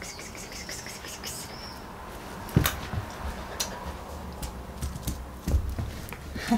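Scattered clicks and light knocks of a plastic toy being mouthed and pulled by a Shiba Inu on a rug, with two heavier thumps about two and a half and five and a half seconds in.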